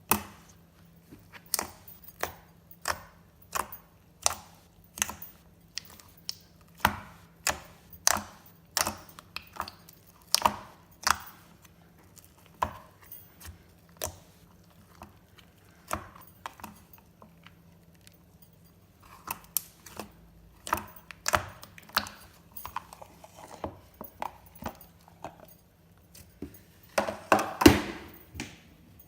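Glossy slime being squished and poked by hand, giving sharp sticky clicks and pops about every two-thirds of a second. Later comes a denser crackling stretch, and the loudest cluster of pops falls near the end.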